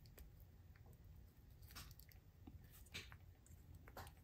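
Near silence with a handful of faint, sharp clicks from tiny parts being fiddled into place: a side rod pin being worked into the running gear of an HO scale model steam locomotive. The clearest clicks come about three seconds in and near the end.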